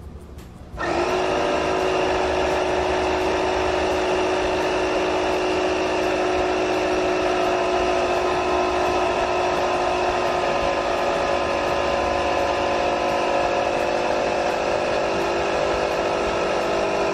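Small portable electric air compressor (tire inflator) switched on about a second in, then running steadily with an even motor-and-pump hum.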